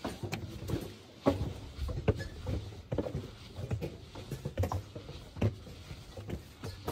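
Footsteps on stairs: irregular knocks about two a second, the loudest a little over a second in.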